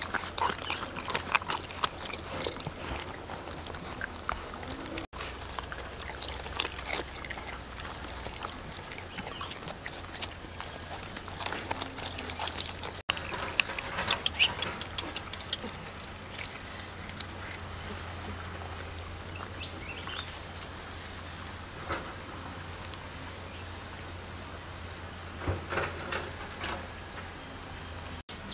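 Several dogs chewing and eating boiled cow ears and chunks of wax gourd off a banana leaf: irregular short clicks of chewing and smacking.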